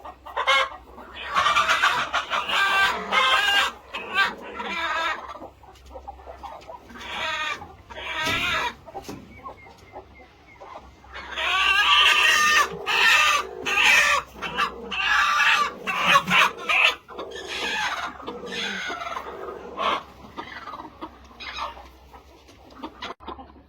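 Chickens clucking and squawking, a flock of hens calling in quick clusters of short, pitched cries.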